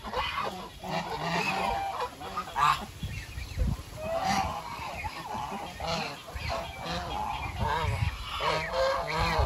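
Chinese domestic geese honking over one another, a flock of short calls that comes again and again, with a few low thuds in between.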